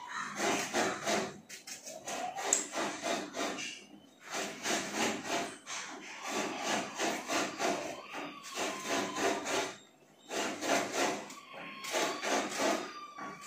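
A kitchen knife scraping and cutting a raw vegetable held in the hand, in quick rhythmic strokes of about four or five a second, in runs broken by short pauses.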